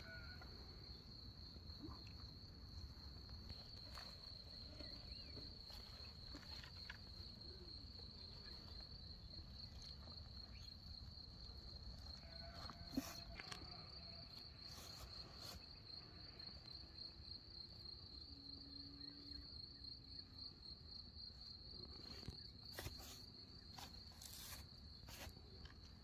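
A faint, continuous high-pitched insect trill with a fine pulsing, and a few light clicks and rustles from hands working the meat and twine.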